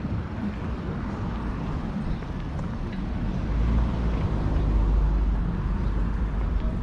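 City street background: a steady hum of traffic with a low rumble that swells louder about halfway through, then eases off.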